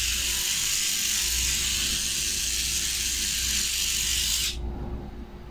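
Small pen-style electric pet trimmer running steadily as it clips the hair on a Yorkshire terrier's ear, cutting off abruptly about four and a half seconds in.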